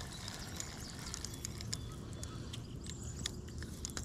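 Outdoor ambience: a steady low background rumble with scattered faint clicks, and a brief high chirp about three seconds in.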